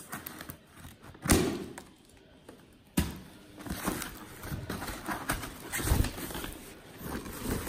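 A foil-lined insulated thermal delivery bag being opened and handled: crinkling and rustling of the bag, with two sharp thuds, one just over a second in and another at about three seconds.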